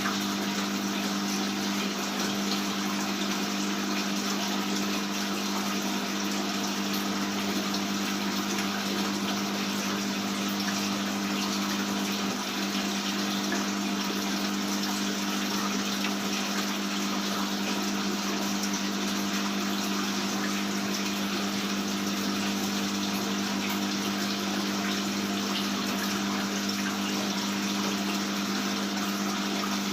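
Aquarium water pump running with a steady hum under a constant rush of splashing water.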